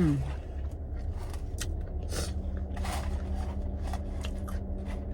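Close-up eating sounds: irregular crunchy bites and chewing of a taco, over a steady low hum.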